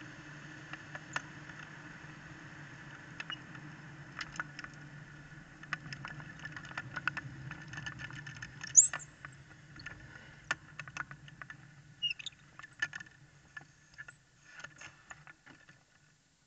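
Superkart rolling slowly to a stop with its engine off: a low rolling rumble from tyres and drivetrain, with scattered rattles and clicks from the chassis and a short high squeak about nine seconds in. The rumble dies away near the end as the kart comes to rest.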